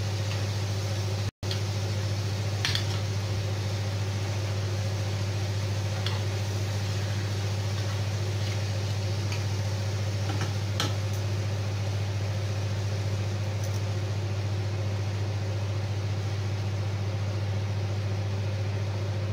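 Chicken breast fillets frying in oil in a grill pan: a steady sizzle over a strong, steady low hum, with a few faint clicks of the metal turner against the pan.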